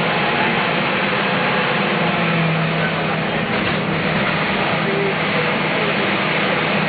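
Inside a moving city bus: steady engine hum and road noise from the bus as it drives.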